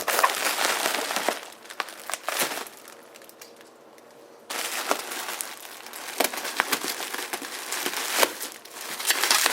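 Packing peanuts and packing material rustling and crinkling as hands dig through a shipping box and lift out the power supply. It goes quieter for about three seconds in the middle, then starts again suddenly.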